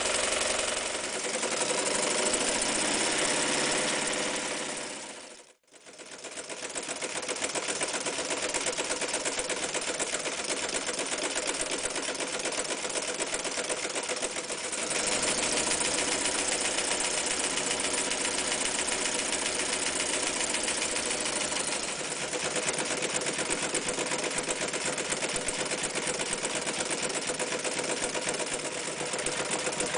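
Vintage electric sewing machine running at a steady speed, its needle stitching fast and evenly through heavy fabric. About five and a half seconds in it dies away almost to nothing, then picks up again and sews on through thick layers of sailcloth.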